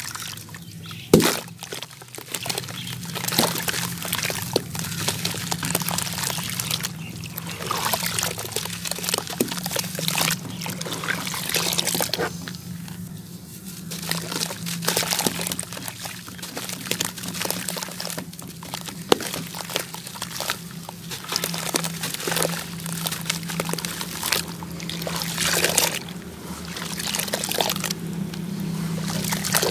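Hands crumbling chunks of wet cement-sand over a bucket of water: gritty crunching and crumbling, with bits trickling and splashing into the water. Near the end there is sloshing as the hands work down in the water.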